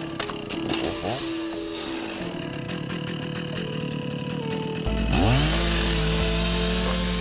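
Chainsaw sawing into a large jackfruit tree trunk, its engine revving up and down. About five seconds in, it opens up louder with a rising engine pitch.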